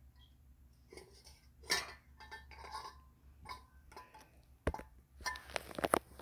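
Scattered light clinks and knocks of a water bottle being handled and raised to drink, with one sharper knock about two seconds in and a cluster of knocks near the end.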